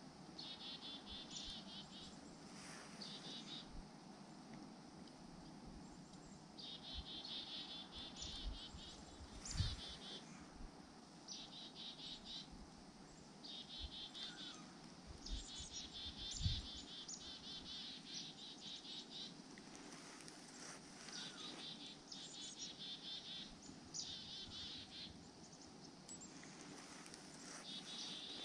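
Small songbirds calling in short, rapid trills, each about a second long and repeated many times with short gaps, over a steady low background rumble; two dull thumps come near the middle.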